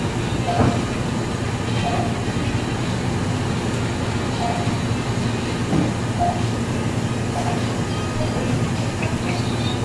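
Water refill vending machine filling a large plastic bottle: a steady rush of water with a low pump hum.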